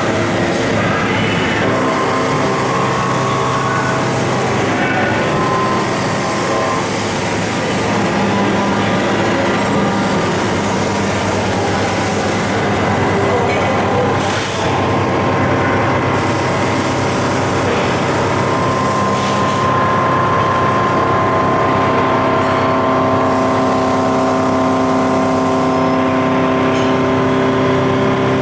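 Mori Seiki MH-50 horizontal machining center running. A steady, loud mechanical whir carries several held tones that change pitch a few times, and a high hiss comes and goes every few seconds.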